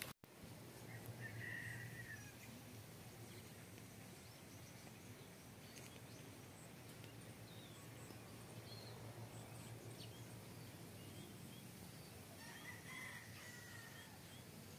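Faint outdoor ambience with steady background noise and two short bird calls, one about a second and a half in and another near the end.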